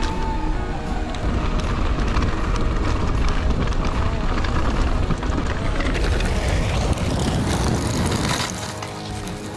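Mountain bike riding fast over a dirt and rocky trail: tyres rolling, the bike rattling over the ground, and wind buffeting the camera microphone. The noise dips briefly a little before the end.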